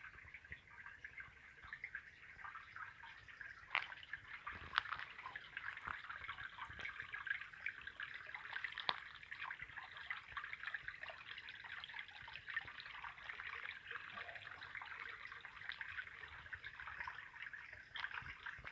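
Small forest stream trickling over stones, a steady splashing with many little drip-like plinks.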